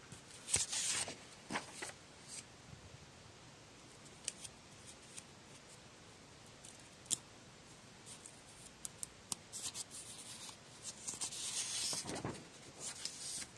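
Paper model sheets being handled, with rustling about a second in, a few light ticks, and a longer rustle near the end as a sheet is turned over.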